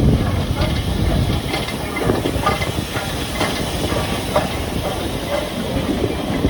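LMS Black 5 steam locomotive hissing steam as the train moves, with scattered irregular clanks.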